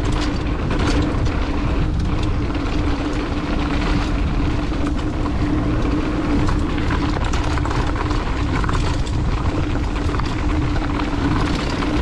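Mountain bike descending a rough, dry dirt trail at speed: wind rushing over the microphone, with the tyres and bike clattering over braking bumps and a steady hum.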